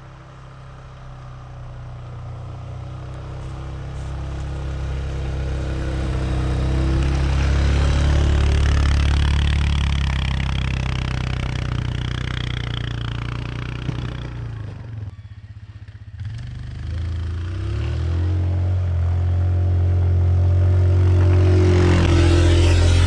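2007 Yamaha Kodiak ATV's single-cylinder four-stroke engine running under load as it pushes deep snow with its plow, growing louder as it approaches, with a hiss of snow being shoved along. The sound drops away briefly about two-thirds of the way through, then the engine is loud and steady near the end.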